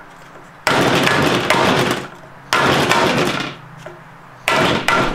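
Hammer striking a wooden block laid across a new torque converter seal, driving it evenly into an A4RA automatic transaxle case. There are three loud blows about two seconds apart, each ringing on for about a second.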